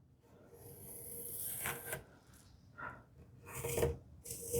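A marking tool scratching along wood as an arc is traced from a template onto a sapele board, a drawn-out scrape followed by a few short handling knocks near the end.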